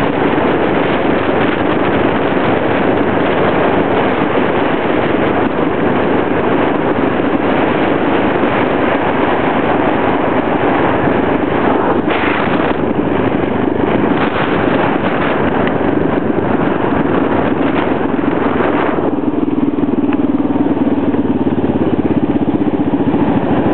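Motor vehicle engine running with rushing road and wind noise, heard from the moving vehicle. About nineteen seconds in the rushing noise eases and a steadier low engine hum remains.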